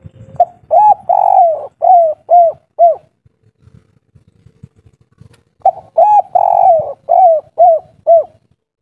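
Caged spotted dove cooing: two phrases a few seconds apart, each a short note, a longer drawn-out coo and then three short coos, in the 'kuk 3' song pattern.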